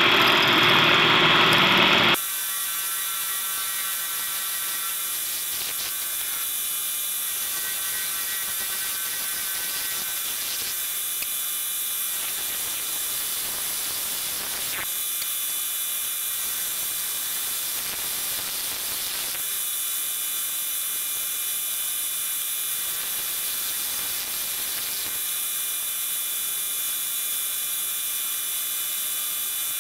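Milling machine running with an end mill cutting keyway slots in a 1144 steel hub: a steady high whine made of many fine tones over a hiss. A louder, fuller burst of machine noise fills the first two seconds and cuts off suddenly.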